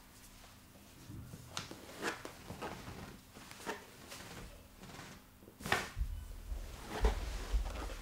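Massage handling sounds: hands rubbing and pressing on skin and clothing, with a scattering of short, sharp clicks or knocks. The loudest come about two thirds of the way in, along with some low thumps from body movement near the end.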